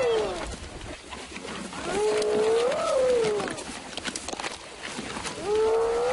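Long moaning animal calls about every three seconds, each rising and then falling in pitch, from a wildebeest being pulled down by spotted hyenas.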